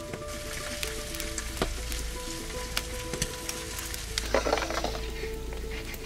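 Chicken thighs in a creamy mustard sauce sizzling and bubbling in a black iron pan in a wood-fired oven, with scattered crackles throughout. A short louder burst of noise comes about four seconds in. Soft background music plays underneath.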